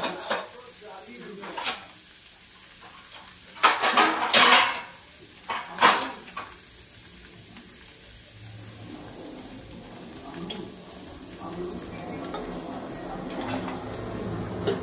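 Chana dal frying in ghee in a kadhai, with a run of sharp clinks and clatters from metal utensils in the first six seconds. The sizzle grows steadily louder near the end.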